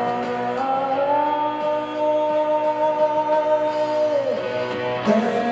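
Music: a singer holds a long note over the accompaniment, the pitch sliding down about four seconds in before a new note starts.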